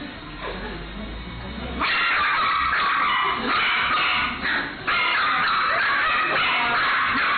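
Small dogs, a Chihuahua and a miniature dachshund puppy, yapping and barking non-stop in high-pitched volleys, starting about two seconds in, with a brief lull near the five-second mark.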